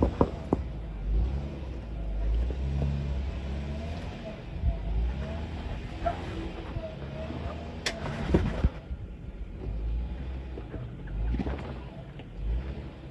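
Jeep Wrangler engine rising and falling in revs as it crawls up over rock, with a few sharp knocks; the loudest knock comes about eight seconds in.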